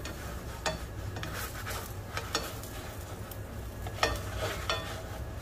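Cooking in a pan: a light sizzle with a handful of sharp clinks and scrapes of a utensil against the pan, the loudest about four seconds in.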